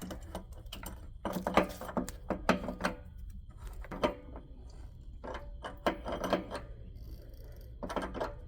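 Metal clicking and clinking in several short bursts as a socket wrench is fitted and turned on an electric water heater's lower heating element, threading it into the tank.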